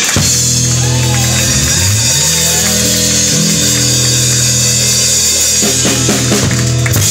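Live soul band playing amplified: the electric bass holds long low notes, sliding up about two seconds in, under a steady wash of cymbals. Sharp drum hits come back near the end.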